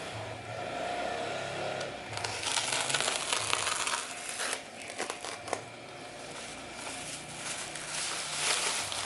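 Packaging being handled, crinkling and rustling in irregular bursts, with a few sharp clicks about five seconds in.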